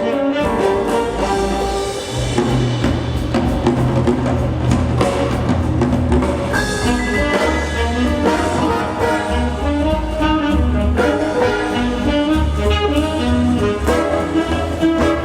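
Brass-led orchestral show music with trumpets, drum kit and a strong bass line, heard over the show's sound system.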